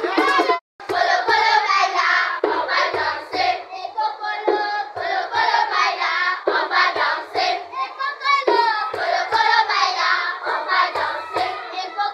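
A group of children singing a traditional Congolese folk song together, with hand claps. The sound cuts out for a moment about half a second in.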